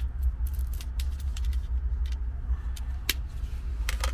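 Scattered light clicks and taps of knives and wood being handled, over a steady low rumble.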